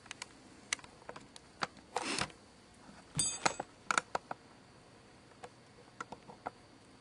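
Handling noise from a video camera: scattered light clicks and a short rustle, with a brief high whirr about three seconds in.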